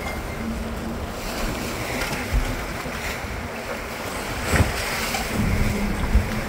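Sportfishing boat under way: a steady engine hum beneath the wash of water churning off the stern and wind on the microphone, with a few dull thumps.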